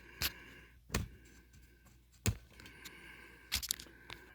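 A few sharp clicks and knocks of hands handling a laptop's plastic case, with a faint steady high whine behind them.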